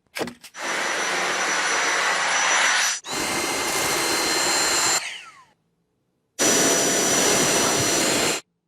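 Dyson V8 cordless stick vacuum running with a steady high whine, heard in three separate stretches with abrupt breaks between them. About five seconds in, the motor spins down with a falling whine.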